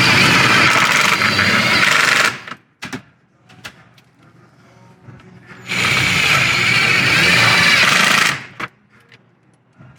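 Impact driver running in two bursts of a couple of seconds each, driving self-tapping screws to fix a carbon rear diffuser, with a few light clicks in the pause between.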